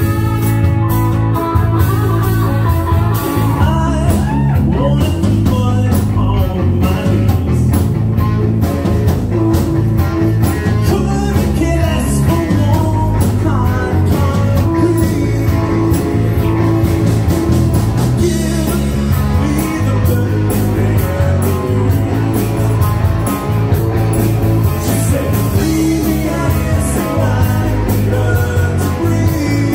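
Live rock band playing: a singer's voice over electric guitars and drums, loud and steady throughout.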